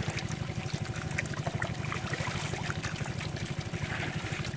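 Water trickling and pouring through a split-bamboo screen into a woven basket full of small puti fish, with scattered small splashes. A steady low engine-like throb runs underneath.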